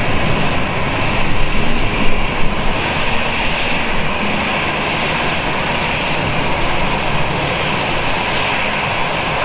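Jet engines of a Boeing 757 running with a steady rushing whine as the aircraft taxis. A few louder surges come between about one and two and a half seconds in.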